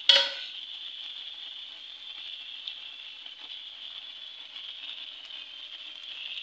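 A sharp clank right at the start, then a steady sizzling hiss from a hot pan on the stove.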